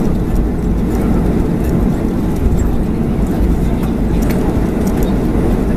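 Cabin noise of a Boeing 737-400 taxiing on the ground: a steady low rumble from its CFM56-3 turbofans at idle and the rolling wheels, with a few faint clicks and rattles.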